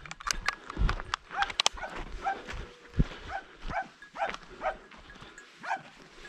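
Hunting dog barking repeatedly at a distance, about two barks a second from about two seconds in, with footsteps crunching on a dirt track.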